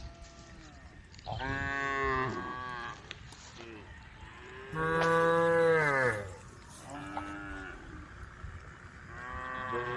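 Cattle mooing: four long moos, each falling in pitch at its end. The loudest comes about five seconds in, a short one about seven seconds in, and the last begins near the end.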